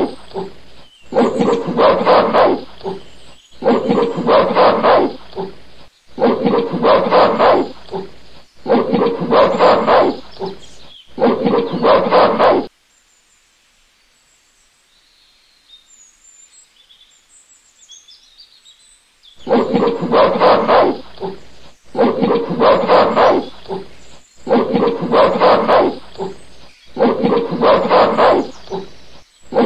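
A recorded animal call sound effect played on a loop: the same short run of several loud calls repeats about every two seconds. It stops for about six seconds midway, then starts again.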